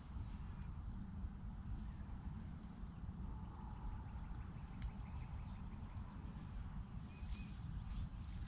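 Small birds giving short, high chirps at scattered intervals over a low, steady outdoor rumble.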